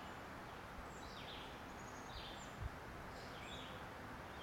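Outdoor ambience: a songbird giving short, high, downward-sliding chirps about once a second over a faint steady hiss. There is a soft low thump about two-thirds of the way through.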